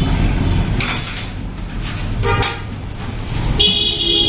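Low, steady traffic rumble with a short vehicle-horn honk near the end.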